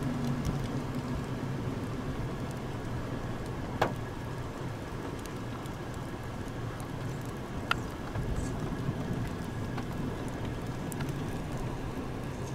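Vehicle engine idling steadily with a low hum, with light rain and scattered drops ticking; two sharper ticks, about four and eight seconds in.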